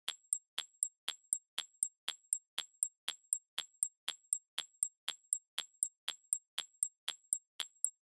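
Countdown-timer ticking sound effect: steady clock-like ticks, about four a second.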